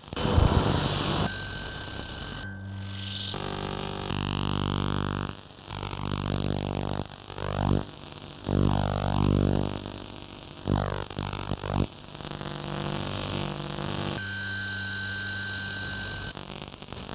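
Medium, short and long wave radio static recorded to quarter-inch magnetic tape: a dense buzzing drone with steady hum tones that changes abruptly every second or so. Swooping whistles come through in the middle, and a steady high whistle sounds near the end.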